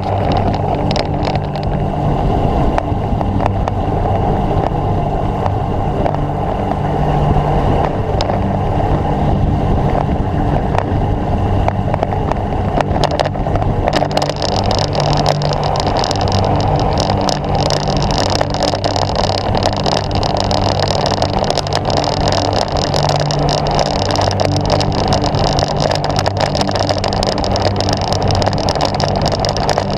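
Wind rushing over a bike-mounted camera's microphone, with tyre noise from a road bicycle rolling on a tarmac lane. A brighter hiss joins about halfway through.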